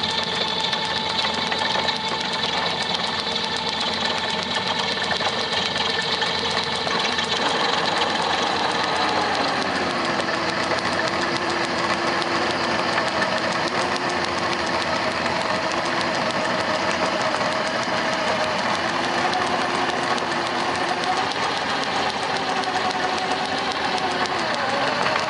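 Drill press running steadily while a drill bit cuts into an aluminium block. The motor's tone sags slightly a few times as the bit takes load.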